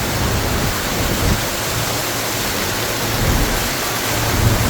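Heavy monsoon rain pouring down in a steady, dense hiss, with irregular low rumbling underneath.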